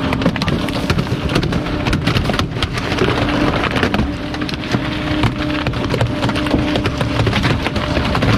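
Garbage truck's hydraulic packer cycling through the hopper and compacting bulky plastic items, with dense irregular cracking and snapping of plastic over the steady drone of the truck's engine and hydraulic pump.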